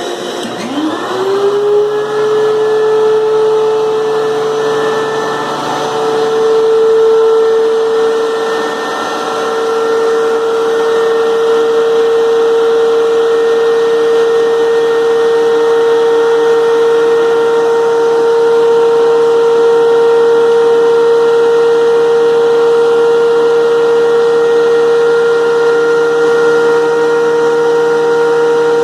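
DeWalt DW735 thickness planer's motor starting up, its whine rising in pitch over about a second and then running steadily at full speed, with a swell in loudness around seven seconds in.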